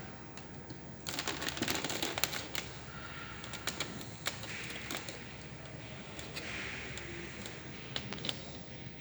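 Small plastic clicks and rattles from the casing and stand parts of an all-in-one PC being handled and fitted, with a quick dense run of clicks about a second in, then scattered single clicks.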